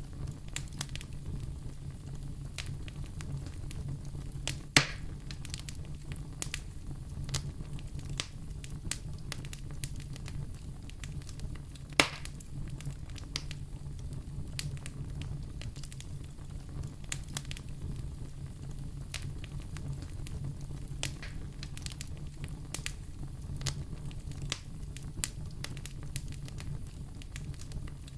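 Wood fire crackling steadily over a low rumble of flames, with many small snaps and two louder pops, about five and twelve seconds in.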